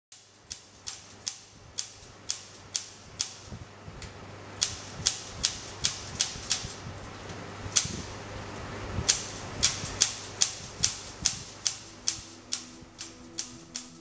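Olympia typewriter being typed on: sharp key strikes, about two to three a second, with a couple of brief pauses and a low steady hum underneath. Music with steady notes comes in about twelve seconds in.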